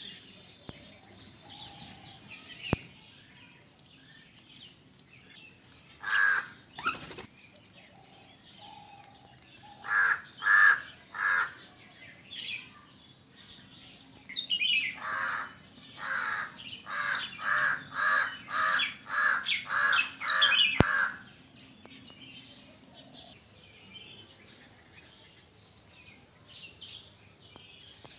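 A bird calling loudly in short repeated calls: a couple, then three, then a long run of about a dozen at roughly two a second, with other birds chirping faintly throughout.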